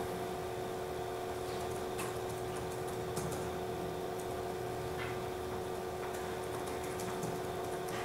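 Room tone: a steady hum with a few fixed tones, and several faint, scattered clicks from a laptop keyboard being used.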